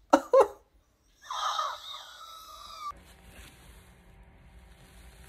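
Two quick pained grunts from a man in pain from a severe sunburn, then a high, strained whimper lasting about a second and a half that breaks off abruptly; after that only faint room hum.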